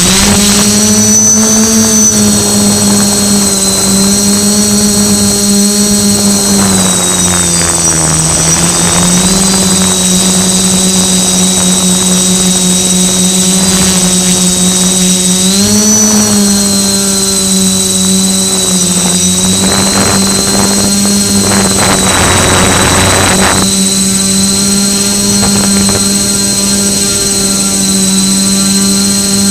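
Multicopter's electric motors and propellers, heard from the onboard camera, running with a steady buzzing hum and a high whine. The pitch dips and rises a few times as the throttle changes, with spells of rushing air noise along the way.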